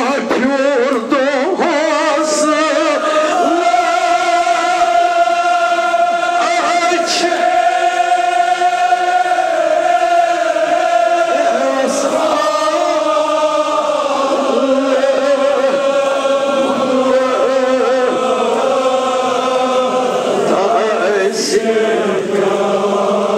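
Male voices chanting a Kashmiri marsiya, a Shia elegy, together in long, slowly wavering held notes. A few sharp hits stand out over the chant.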